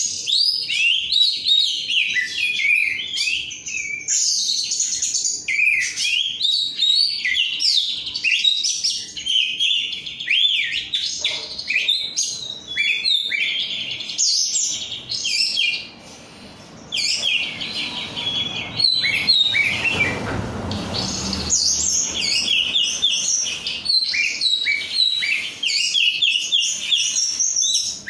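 Oriental magpie-robin (kacer) singing vigorously: a long, rapid run of varied whistled and chattering phrases with many quick rising and falling notes, broken by a short pause a little past the middle.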